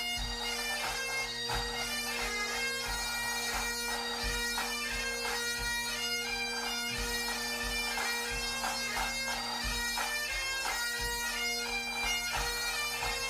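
Background music: a melody played over a steady held drone, with a regular drum beat beneath.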